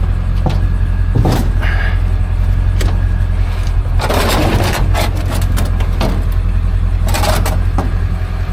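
Idling vehicle engine as a steady low rumble, under scattered knocks and a few scraping noises from scrap metal being handled.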